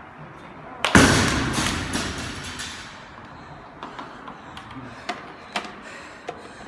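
A loaded barbell with bumper plates dropped from overhead onto rubber gym mats: one loud crash about a second in, then the plates rattle and bounce as the sound dies away over about two seconds. A few light knocks follow.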